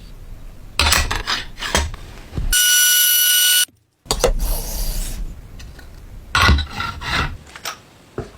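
A hand tool scraping across wood in repeated rough strokes, in two spells with a short break between them.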